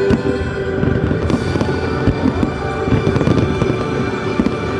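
Aerial fireworks going off in a dense run of bangs and crackles, with music playing underneath.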